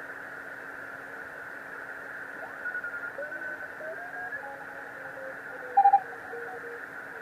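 Amateur radio receiver hissing in Morse (CW) mode while being tuned across the band: faint Morse code signals slide up and down in pitch as the dial sweeps past them. About six seconds in there is one short, much louder beep.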